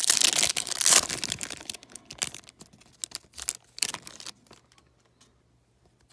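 Foil trading-card pack wrapper being torn and crinkled for about a second, then lighter scattered crinkles and clicks as the hockey cards are handled, dying away about four seconds in.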